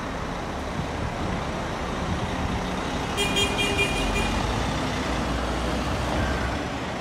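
Large coach bus with a 425-hp engine driving past, its engine rumbling steadily and getting heavier as it pulls away about four seconds in. A quick run of short high-pitched beeps sounds about three seconds in.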